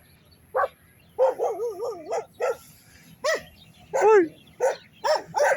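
Dogs barking repeatedly in short, sharp barks, about a dozen in all, with a quick run of yaps about a second in.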